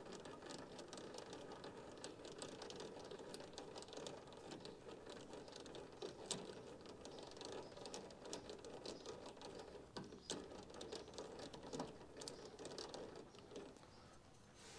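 Light, scattered metallic clicks and taps from hands working a lathe's collet to release a crankshaft half, over a faint steady hum.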